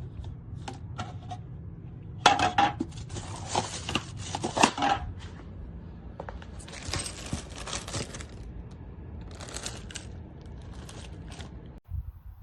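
Hard objects being handled, clicking, clattering and rustling in bursts, loudest a couple of seconds in, over a low steady hum that cuts off near the end.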